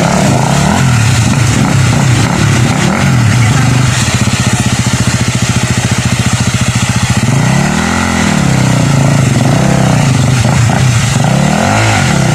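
Dirt bike engine revving up and down again and again as its rear wheel spins in a muddy creek crossing while riders push the bike up the bank. From about four to seven seconds in, an engine runs at low revs with a fast, even putter.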